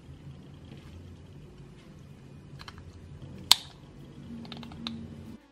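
Small sharp clicks and taps from a plastic diecast model-car chassis being handled in gloved hands, with one loud click about three and a half seconds in and a few lighter ones after it, over a low steady hum.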